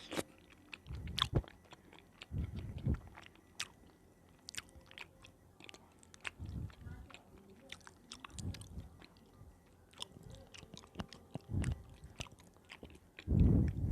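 Close-miked chewing of soft, wet food: many small wet clicks and mouth smacks, with a soft low thump every couple of seconds and a louder one near the end.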